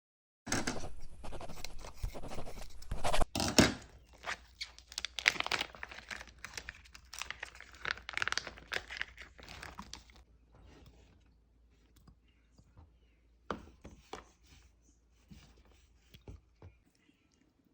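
Food-preparation handling: about ten seconds of rustling, crinkling and tearing, then scattered light clicks and knocks that thin out toward the end.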